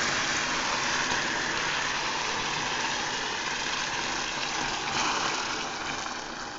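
Water poured into a pan of hot melted sugar syrup, hissing and bubbling hard as it hits the caramel. The hiss eases off near the end.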